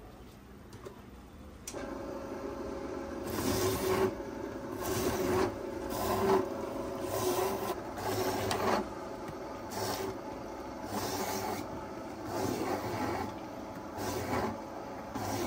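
Electric citrus juicer's motor starting about two seconds in and running steadily, with a rasping surge roughly once a second as each lemon or orange half is pressed onto the spinning reamer.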